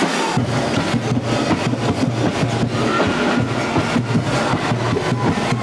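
Loud, fast drumming: rapid repeated knocks over a steady low hum.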